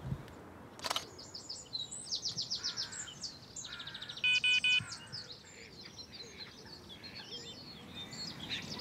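Small birds singing with quick chirping trills. About four seconds in, three short electronic beeps in quick succession stand out as the loudest sound, and there is a single knock about a second in.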